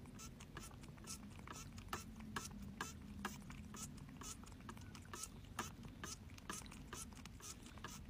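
Quick, quiet scratching strokes of a hand-held grooming brush rubbed against a cat's cheek fur, about three short scrapes a second, over a faint low hum.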